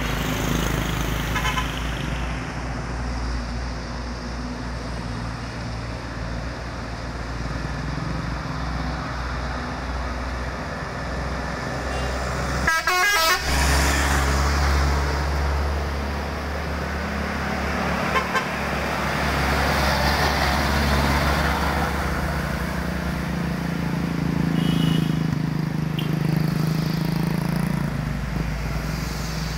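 Heavy cargo trucks' engines running as they pass, loudest when one truck goes by close about halfway through, with brief horn toots.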